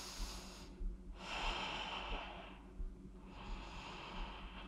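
A woman breathing slowly and audibly, about three long breaths in and out.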